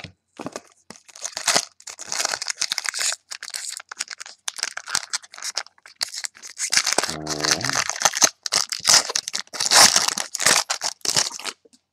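Wrapper of a trading-card pack crinkling and tearing as the pack is opened, mixed with the rustle of cards being handled. It is loudest about ten seconds in.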